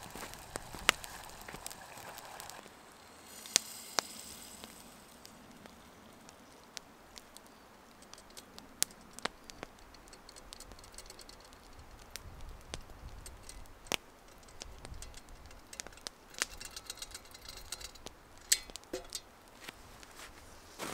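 Campfire crackling with sharp pops under a cooking pot, faint sizzling in the first few seconds. After that, quieter scattered clicks and a brief hissing rustle as tomato sauce is tipped from the metal pot onto pasta.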